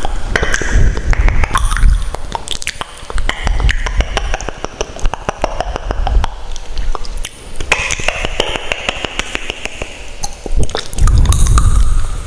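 Close-miked ASMR trigger sounds: many small sharp clicks and taps, with heavy low rubbing surges against the microphone, loudest near the end.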